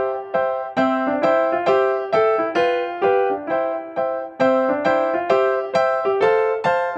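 Background music played on a piano or electric piano: a light, repeating melody of struck notes, about two to three a second.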